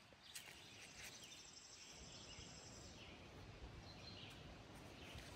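Near silence: faint outdoor background noise with a few faint, short bird-like chirps.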